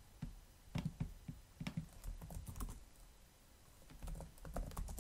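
Computer keyboard typing: scattered key clicks, a lull of about a second, then quicker typing near the end.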